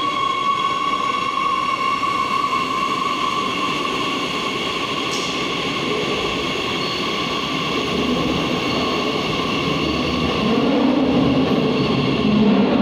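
A Madrid Metro train runs past along the platform. It gives a steady high whine of several tones over a rolling rumble. The whine fades over the second half, and the lower rumble grows near the end as the train leaves.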